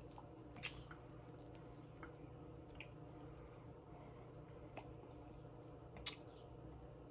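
Close-miked eating mouth sounds: faint wet chewing and lip smacks, with a few sharper smacks a second or two apart, the loudest near the end, over a faint steady low hum.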